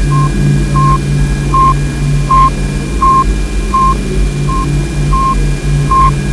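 Sputnik-1's radio beacon beep, a short tone repeating about every three-quarters of a second, layered over a steady low pulsing drone and hiss from sonified spacecraft recordings of space plasma and the Sun.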